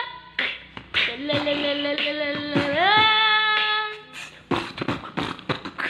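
A young boy singing long held vowel notes in an exaggerated wail, each note stepping up in pitch near its end. About four seconds in the singing breaks off into a string of short, sharp breathy bursts.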